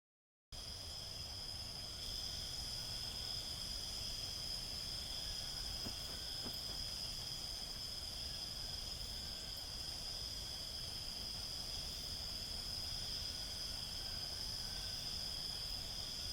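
A steady insect chorus, high and unbroken, over a low background rumble. It starts abruptly about half a second in, after dead silence.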